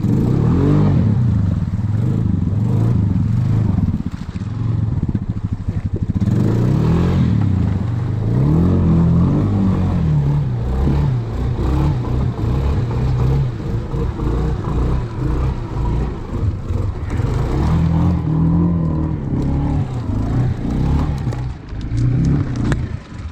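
ATV engine running under load, its pitch rising and falling over and over as the throttle is opened and eased off.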